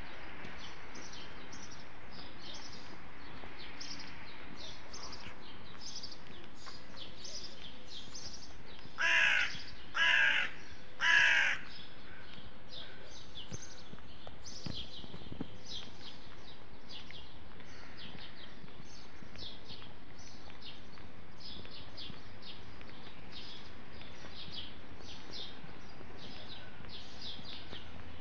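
Small birds chirping steadily in quick repeated short notes, with a crow cawing three times, loudly, about a third of the way in.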